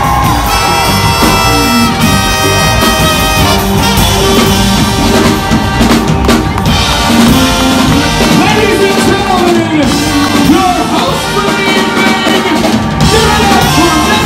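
Band music with a drum kit and brass playing a lively tune, loud and unbroken.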